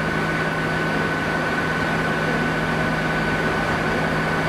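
Class 66 diesel locomotive's two-stroke V12 engine running, a steady low drone with a thin high whine held above it as the locomotive approaches slowly.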